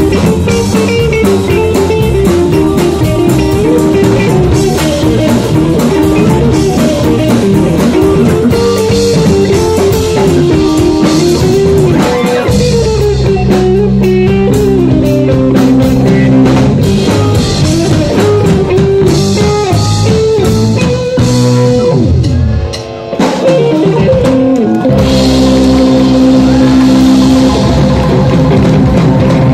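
Live rock band playing an instrumental passage with no singing: electric guitar over a drum kit and keyboards. The bass and drums drop out briefly about three-quarters of the way through, then the full band comes back in.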